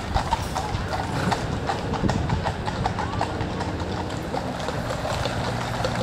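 Horses' hooves clip-clopping on the road as a pair of carriage horses trots past drawing a carriage, a quick run of sharp hoof strikes over a murmur of crowd voices.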